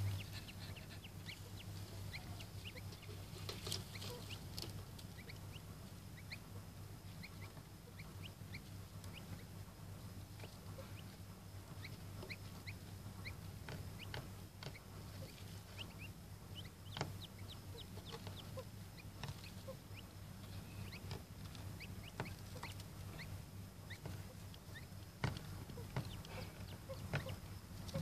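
Chukar partridge chicks peeping: repeated short, high, falling cheeps, over a steady low hum.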